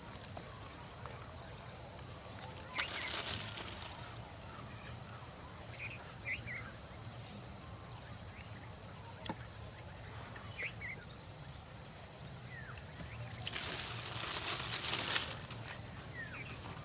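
A steady, high-pitched insect chorus, likely crickets, runs throughout, with scattered short bird chirps. Two short bursts of noise stand out: one about three seconds in and a longer one near the end.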